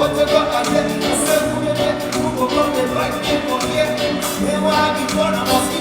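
Live band music with a steady beat, with some singing, from a stage performance of an Afrobeats/Afropop song.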